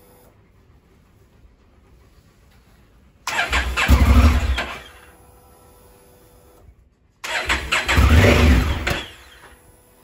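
Honda Africa Twin's parallel-twin engine started twice on the electric starter: each time it catches, runs for about a second and a half, and dies away. This is the start-then-stall fault that the owner puts down to carbon inside the starter switch making the contacts arc.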